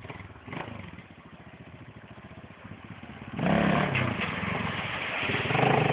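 Suzuki DR350 single-cylinder four-stroke trail bike running faintly as it approaches. About three and a half seconds in it turns much louder as it rides into the ford, engine revving over the splash of water thrown up by the wheels.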